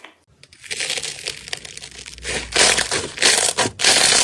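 Slime being squeezed and pressed in the hands, a dense crunching crackle of many small pops that starts about half a second in and gets louder a couple of seconds later.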